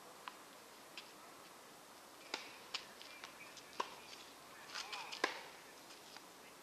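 Tennis ball struck by rackets and bouncing on the court during a rally: sharp single pops, about half a second to a second and a half apart, the loudest about five seconds in.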